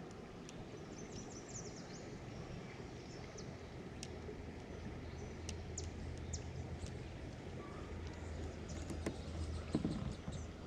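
Faint outdoor ambience: a low rumble that grows stronger in the second half, with scattered small clicks.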